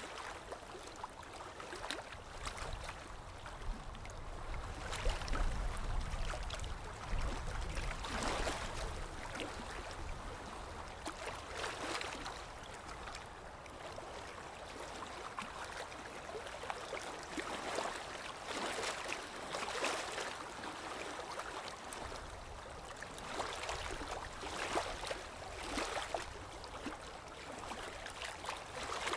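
Water lapping in small, irregular splashes every second or two, with a low wind rumble underneath that swells about a third of the way in.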